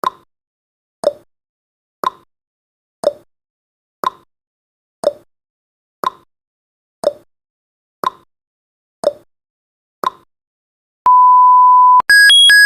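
Countdown timer sound effect. Clock-style ticking comes once a second, alternating between a higher and a lower tick. As the timer hits zero a steady electronic beep sounds for about a second, followed near the end by a rapid, high-pitched electronic alarm of stepping tones.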